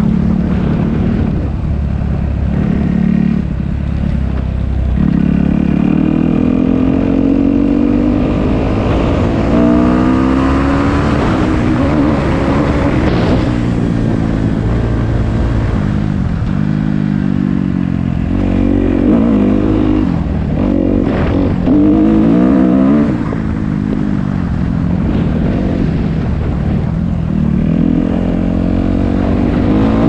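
Off-road motorcycle engine running under way. It holds steady for a few seconds, then rises and falls in pitch again and again as the throttle is opened and eased off, and settles steadier near the end.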